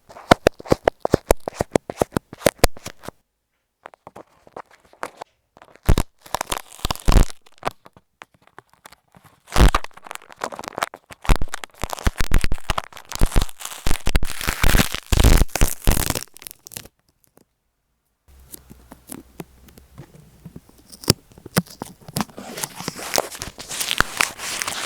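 An Apple EarPods earphone microphone covered in tape, picked up at point-blank range as it is poked, scratched and rubbed through the tape. The sound is crackly scratching and quick taps in bursts, with two short silent pauses. It turns into a softer, steadier rubbing near the end.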